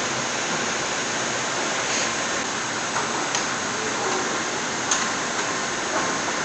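Steady factory-floor machinery hiss, with a few sharp clicks about two, three and a half and five seconds in.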